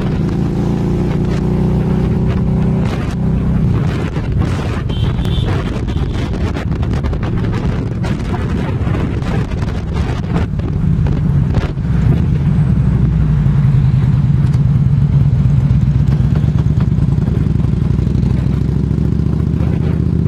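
Trike's engine running at road speed, heard from the pillion seat, with short knocks from the handheld camera being jostled. The engine note gets steadier and a little louder about twelve seconds in.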